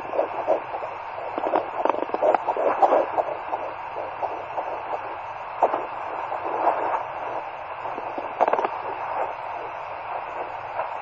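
Home fetal Doppler's speaker giving a steady hiss with irregular whooshing and scratchy crackles as the probe is moved through gel over the lower belly, searching for the baby's heartbeat without holding a clear signal.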